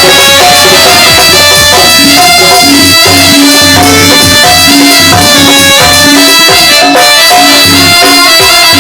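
Loud instrumental music: a melody instrument playing a repeating tune over a steady drum beat.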